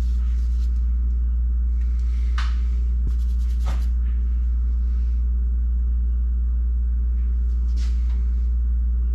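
A steady low hum throughout, with a few faint, brief scrapes and clicks of parts being handled during the gasket work.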